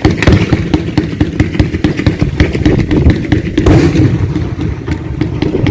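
Aerial fireworks going off in quick succession: many sharp bangs and crackles over a steady low rumble, with one brief rush of noise about three and a half seconds in.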